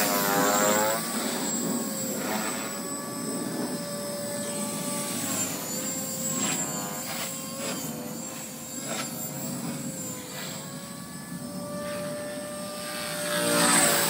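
Blade 450 electric RC helicopter flying overhead: a steady high whine from its E-flite 3600kv motor and rotor, held at a constant head speed by the ESC's governor. It swells with swooshing blade noise and bending pitch as the helicopter swings close and manoeuvres, at the start, around six to eight seconds in, and near the end.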